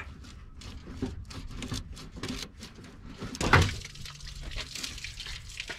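Light clicks and knocks of hand work at a pickup's radiator hose connections, with one louder clunk about three and a half seconds in.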